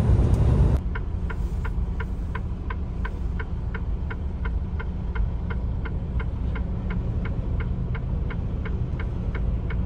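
A semi truck's turn signal clicking steadily, about three clicks a second, heard inside the cab over the low, steady rumble of the engine.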